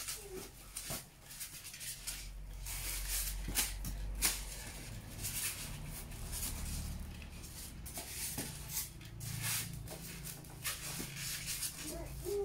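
Irregular rustling with scattered clicks and knocks, over a low rumble.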